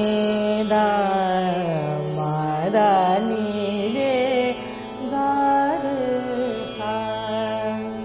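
A woman singing a wordless alaap in raag Yaman, holding notes and sliding between them in ornamented glides, over a steady drone accompaniment.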